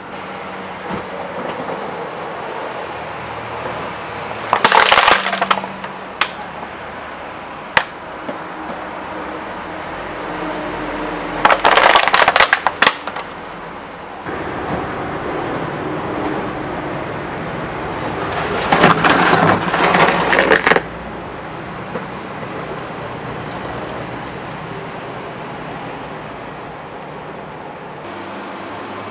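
Empty bottle crackling and crunching as a car tyre rolls over it on concrete. It comes in three loud bursts of a second or two each, with a couple of sharp single cracks after the first.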